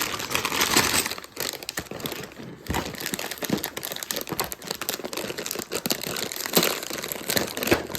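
Packaging of a toy beauty kit crinkling and rustling as it is handled and pulled open, with irregular crackles.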